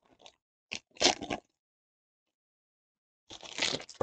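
Foil trading-card pack wrapper being torn open and crinkled by hand, in short crackly bursts: a cluster about a second in and a longer one near the end.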